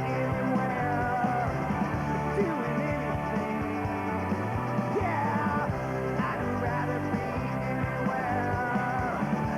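Rock music with a singing voice and a steady beat.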